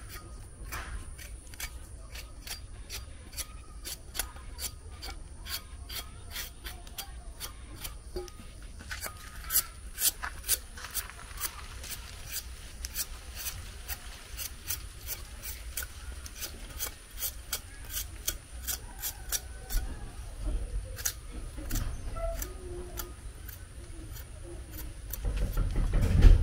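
A knife scraping the skin off a sweet potato in short, quick strokes, a few a second. A louder low rumble comes just before the end.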